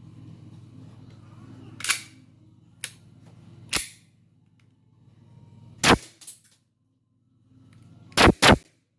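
E&C G18c gas blowback airsoft pistol firing single sharp shots at intervals of about two seconds, with a quick double shot near the end.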